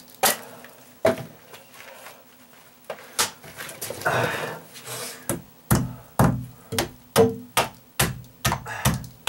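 Hammer blows knocking down protruding stucco staples in plywood sheathing: a few scattered taps, then a steady run of strikes about two a second from a little past halfway, some with a short metallic ring.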